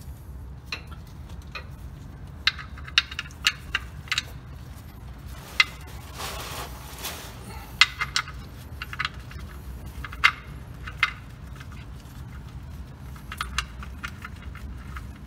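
Sharp, irregular metal clicks and taps of hand work under a truck as a screw is put back into its hole and threaded in by hand. A short rustle comes about six seconds in, over a steady low hum.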